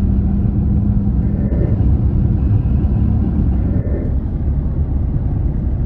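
A car driving on the open road, heard from inside the cabin: a steady, loud low rumble of engine and road noise.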